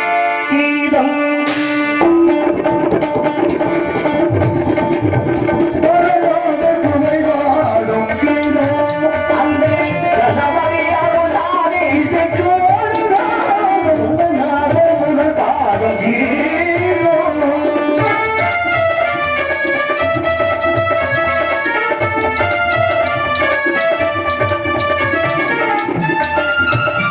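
Tabla playing a quick, even rhythm under a keyboard melody, with a man's voice singing a wavering line through the middle part.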